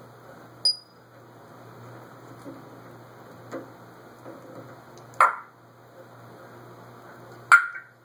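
African grey parrot making short sharp clicks and pops: a brief high ping about a second in, then two louder pops, one past the middle and one near the end, over a low steady hum.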